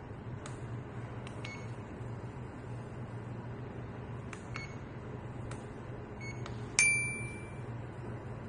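Electronic beeps from the FNIRSI DST-201 repair tool's buzzer as its controls are worked: sharp clicks, several short high beeps that each follow a click, then one longer, louder beep near the end. A steady low hum runs underneath.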